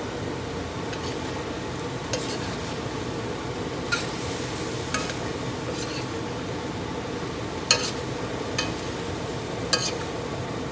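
String beans, beef and peppers sizzling in a stainless steel skillet while a spatula stirs them, with sharp scrapes and clinks of the spatula against the pan several times.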